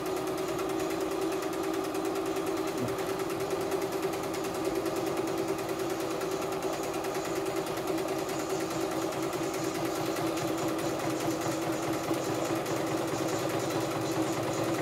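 CNY E960 computerized sewing and embroidery machine running steadily at speed, its needle working in a fast, even rhythm while sewing a buttonhole stitch.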